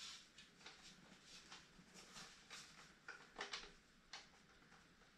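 Faint, irregular rubbing and small clicks of an electrical cord being fed through a strain-relief fitting in a sander's switch box cover, stopping about four seconds in.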